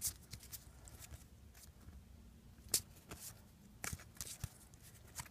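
Football trading cards being handled and flipped through by hand: scattered light clicks and flicks at irregular intervals, one sharper click a little past halfway.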